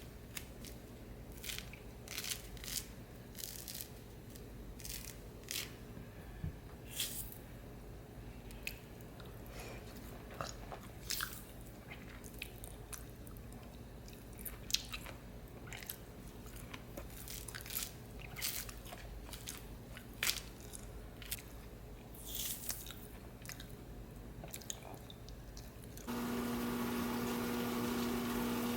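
Irregular crisp crunches and clicks of kitchen work, such as food being cut or handled. About two seconds before the end it cuts to a louder, steady sizzling noise.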